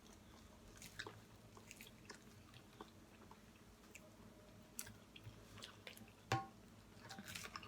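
Faint chewing and wet mouth sounds of someone eating, with scattered soft clicks and one sharper click about six seconds in.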